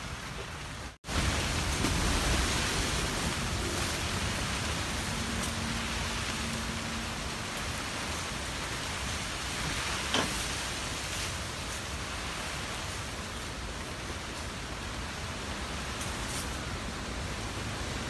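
Loud, steady noise of wind and rain on the microphone, with a single sharp click about ten seconds in.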